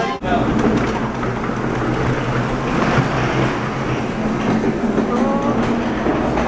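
Steady, loud rumbling background din with a low hum underneath and faint, indistinct voices now and then.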